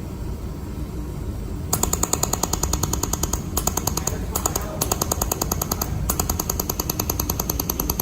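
Pulsed laser mold welding machine firing, a rapid, even train of sharp clicks, one per laser pulse, starting about two seconds in and running in four bursts with brief pauses, over a steady low machine hum.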